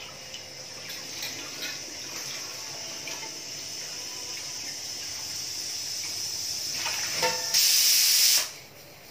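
Kitchen tap running into a steel sink while stainless-steel dishes are rinsed: a steady hiss of water that slowly grows louder, with a few light clinks of steel utensils. Near the end, a much louder rush of splashing water lasts about a second, then the sound drops away.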